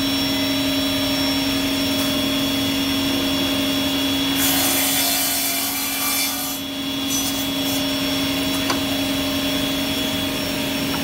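Woodmaster WM-442R double-end cut-off saw running with a steady motor hum and whine. About four seconds in, its circular blades cut through a stack of boards for about two seconds with a loud hiss of sawing, then the blades spin free again.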